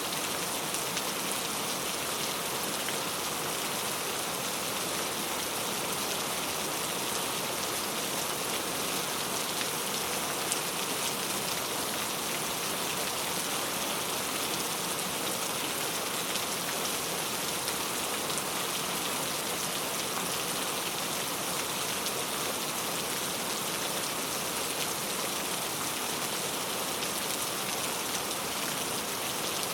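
Heavy rain falling steadily: a dense, even hiss of raindrops with no break or change.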